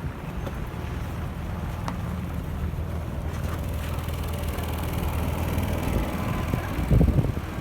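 City traffic: a vehicle's engine running with a steady low hum while tyre and road noise build through the middle. Wind gusts buffet the microphone near the end.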